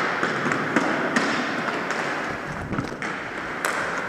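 Floor hockey play on a hardwood gym court: scattered sharp clacks and taps of sticks and ball on the floor and running footsteps, over a steady echoing noise of the hall.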